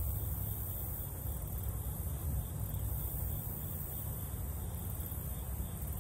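Steady outdoor ambience: a low rumble and a constant high-pitched hiss, with no distinct events.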